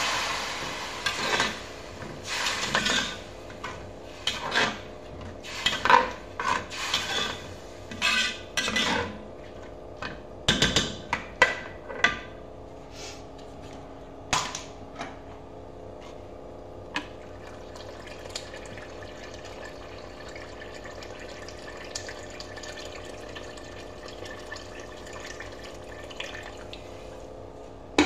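A metal slotted spoon stirring red lentils in water in a metal pot: scraping and clinking against the pot with sloshing water, busy for the first dozen seconds and then only an occasional clink. Water being poured into the pot fades out in the first second.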